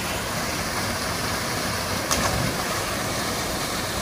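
Steady rushing of a waterfall's falling water, with one short click about two seconds in.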